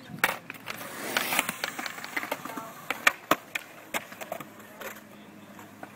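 Skateboard wheels rolling on concrete, with repeated sharp clacks and knocks of boards landing and hitting the concrete.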